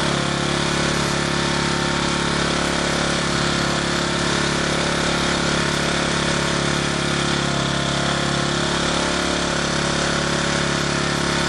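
Portable generator's gasoline engine running steadily at an even speed under a light 200-watt load.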